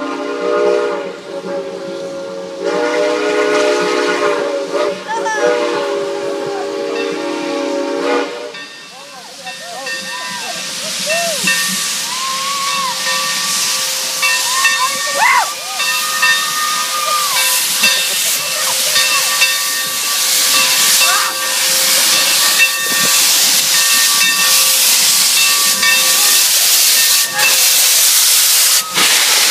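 Santa Fe 3751, a 4-8-4 steam locomotive, sounding its whistle in one long multi-note blast for about eight seconds, followed by a steady steam hiss that grows louder as the engine comes alongside, with a few short squeals.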